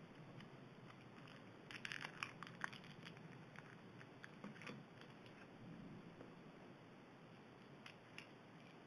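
Foil wrapper of a QBB Baby Cheese portion crinkling faintly as it is peeled off the cheese, with a cluster of crackles about two seconds in and a few scattered ones after.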